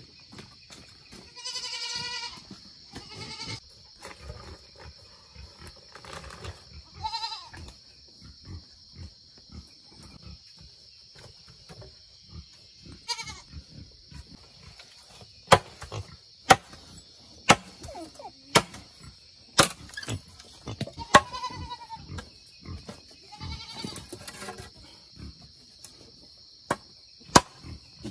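Short, high-pitched animal cries, several separate calls of about half a second each, most of them in the first half. From about halfway there are sharp chopping knocks roughly once a second, over a steady high insect buzz.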